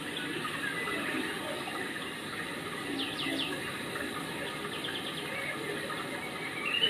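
Steady rush of running water, with a few short high chirps, likely a bird, about three seconds in.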